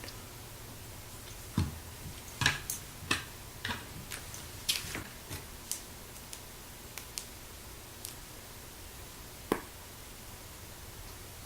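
Plastic Lego pieces being handled and snapped together: irregular sharp clicks and light knocks, about a dozen, the loudest a little after two seconds in and again near the end.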